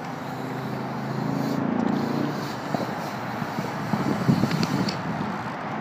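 Road traffic: a motor vehicle's engine swells and fades about two seconds in, over steady city background noise. A few light clicks come later.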